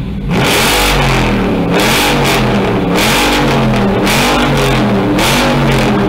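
2018 Dodge Charger Daytona's HEMI V8 revved repeatedly while stationary, the exhaust note rising and falling in several quick throttle blips.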